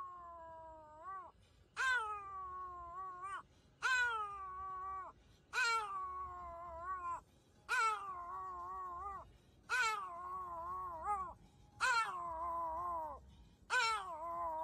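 Pomeranian puppy howling: eight drawn-out calls, about one every two seconds, each starting high, sinking and lifting briefly at the end. A faint low car rumble runs underneath.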